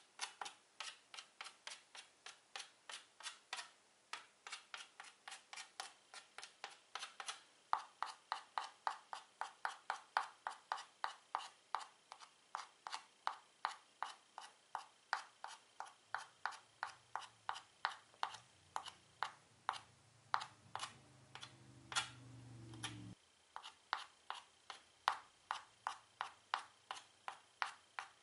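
Chalk tip tapped rapidly on a chalkboard, stippling stars, about four light taps a second. A low hum swells in the background in the second half and cuts off suddenly.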